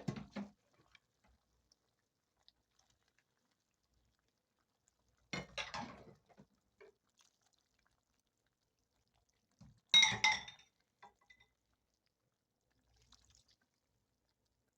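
Kitchen sounds while cooking: three short bursts of pouring and clinking dishes and utensils, near the start, about five seconds in and about ten seconds in, the last one the loudest with a ringing clink.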